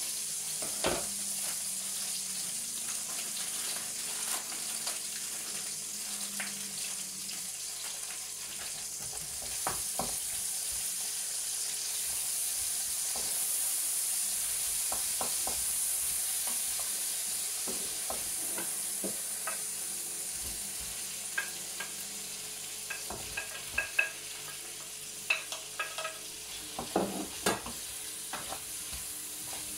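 Chicken pieces and tomatoes sizzling in a frying pan on the hob. A utensil stirring them clinks and knocks against the pan, more often and more sharply in the second half.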